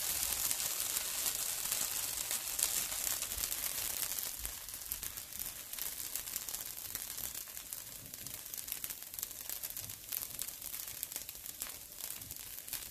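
Dosa batter sizzling on a hot cast-iron pan: a steady hiss with many tiny crackles, slowly growing quieter.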